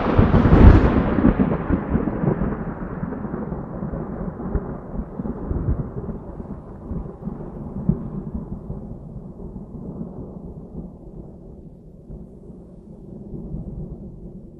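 Thunder: a loud clap under a second in, then a long rolling rumble that slowly fades and grows duller.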